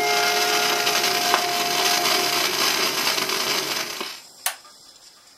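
A 78 rpm shellac record reaching its end: the band's final held chord dies away under loud surface hiss. About four seconds in the hiss drops off sharply, and a single sharp click follows half a second later.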